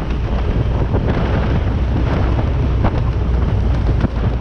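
Wind buffeting the microphone: a loud, steady low rumble with no speech in it.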